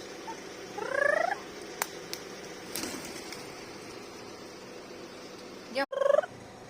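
A bird calling twice, each a short rising call, about a second in and again near the end, with a couple of sharp clicks between them.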